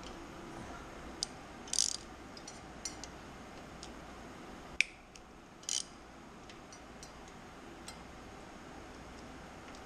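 Hand socket ratchet working exhaust flange bolts loose on a ULPower UL350iS engine: two short quick runs of ratchet clicking and a scatter of sharp metal clicks and taps. The loudest is a single sharp click just before the halfway point.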